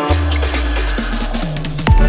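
Electronic background music: a held deep bass note under a thinner texture, then a sudden loud drop into heavy bass and drums near the end.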